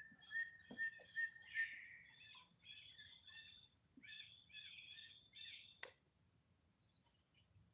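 High animal calls: one long high note for about a second and a half, a short rising sweep, then a quick run of about seven short chirps that stops a little under six seconds in.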